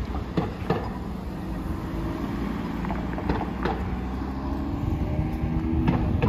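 City road traffic at an intersection: cars driving past, with a steady engine hum from about a second and a half in, and a few sharp taps.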